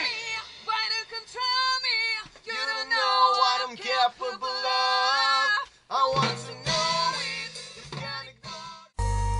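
Sung vocal phrases with little accompaniment beneath them. About nine seconds in, a sustained electronic tone with a deep bass note cuts in suddenly.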